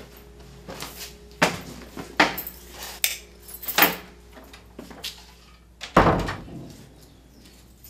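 A wooden door shut with a heavy thud about six seconds in, after several sharp knocks and clicks of handling.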